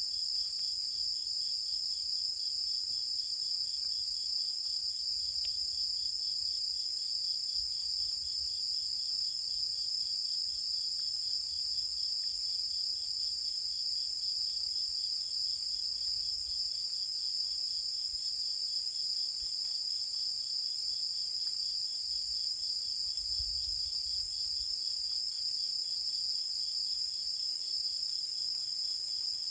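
A chorus of insects, crickets among them, chirring steadily in the countryside at night, with a fainter, rapidly pulsing trill underneath.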